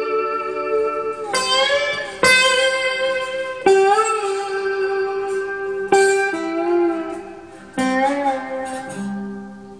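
Steel-string acoustic guitar played solo in a slow blues: single picked notes and short chords that ring out and decay, with some notes bent up in pitch, the playing dying away near the end.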